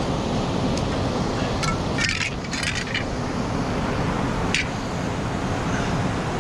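Steady rush of wind on the microphone and water pouring over a dam, with a cluster of light metallic clinks about two seconds in and one more clink past the four-second mark.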